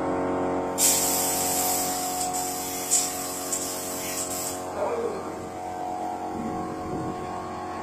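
An air paint spray gun sprays paint onto a wall through a stencil, giving a steady hiss from about a second in until about four and a half seconds in. Background music with long held notes plays throughout.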